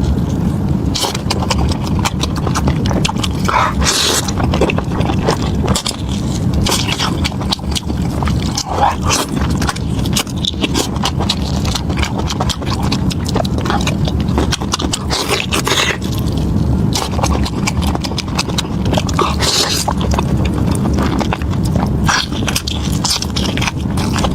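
Close-miked chewing and mouth sounds of someone eating lamb tripe and lamb brain, with many small wet clicks and smacks. A steady low rumble runs underneath.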